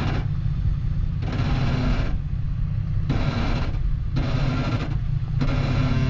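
Off-road vehicle's engine running low and steady as it crawls on rock. A hiss comes and goes about once a second.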